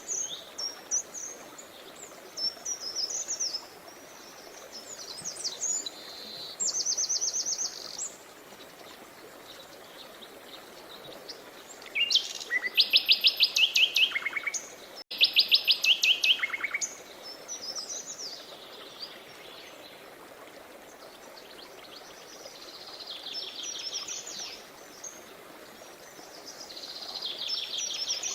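Songbirds singing: short high chirping phrases and fast trills, loudest around the middle, over a faint steady rush of a river.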